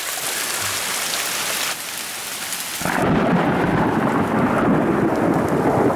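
Mountain hailstorm: hail and rain coming down hard. About three seconds in the sound changes abruptly to a louder, deeper downpour.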